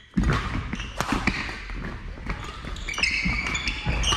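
Badminton rally in a sports hall: sharp racket strikes on the shuttlecock and court-shoe squeaks on the hall floor, with several hits in the first second and a half and short squeaks later on.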